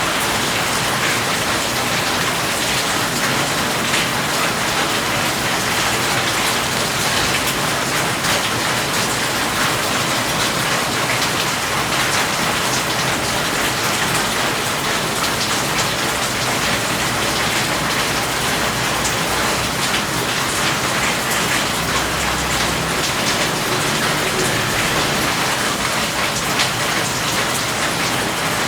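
Steady rain falling on a surface, a dense even patter of many small drops.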